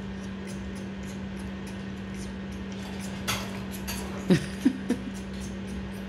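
African grey parrot making three short low calls in quick succession about four seconds in, the first falling in pitch, over a steady low hum.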